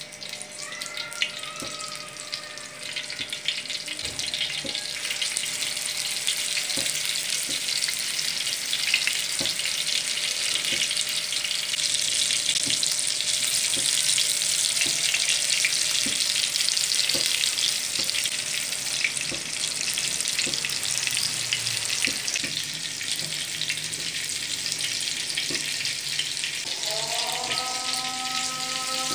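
Chapli kabab patties of spiced minced meat shallow-frying in hot oil in a flat griddle pan: a steady sizzle with small crackles of spitting oil, growing louder over the first dozen seconds as more patties are laid in.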